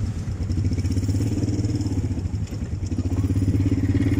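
Quad bike (ATV) engine running close by, a steady low drone that gets louder about three seconds in as it is given a little throttle.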